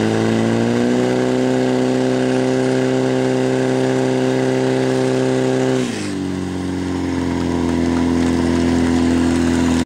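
Portable fire pump's engine running at high revs, pushing water through two attack hose lines. About six seconds in the revs drop sharply, then hold lower and slowly climb again.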